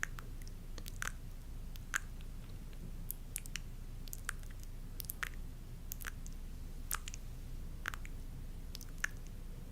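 ASMR sounds made close to the microphone: soft, wet-sounding clicks and squishes about once a second, over a low steady hum.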